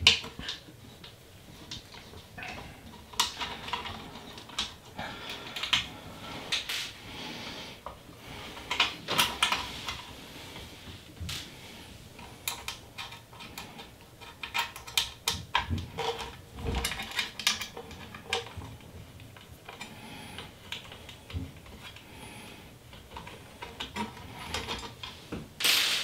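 Small screws being worked out of a 3D printer's metal mainboard cover, with irregular small clicks, taps and scrapes of metal on metal.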